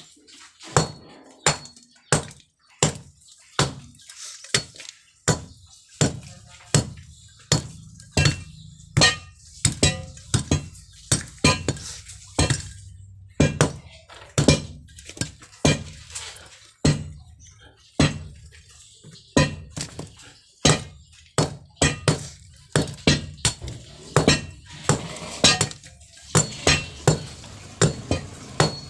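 A metal tool striking hard material over and over, with sharp ringing clinks about one to two a second at an uneven pace.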